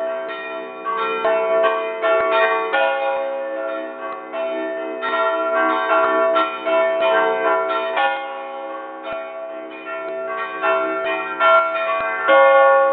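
Several large bronze church bells rung together in a festive full peal. Rapid, overlapping strokes each leave long ringing tones. The sound is loud and close, from right beside the bells in the belfry.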